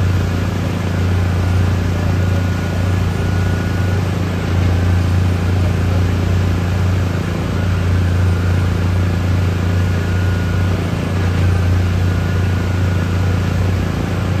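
Heavy diesel engine running steadily under load with a deep, even drone, its low note dipping briefly every three to four seconds.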